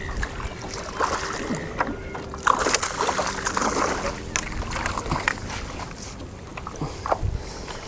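Water splashing and sloshing around a fishing kayak, with scattered knocks and clicks on the hull and gear while a hooked flathead is brought alongside.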